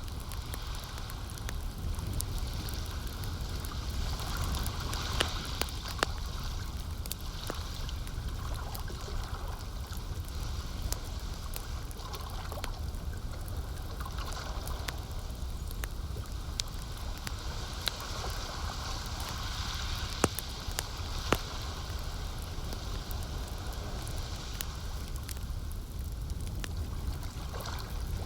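Campfire crackling with scattered sharp pops over gently lapping, gurgling lake water, with a steady low rumble underneath.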